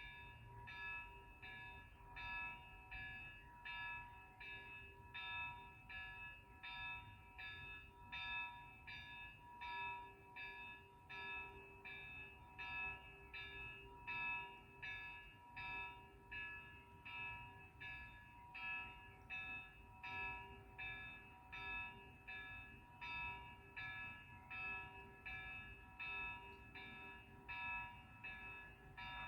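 A church bell rung over and over in a steady quick rhythm, about three strokes every two seconds, each stroke ringing on into the next, over a low rumble.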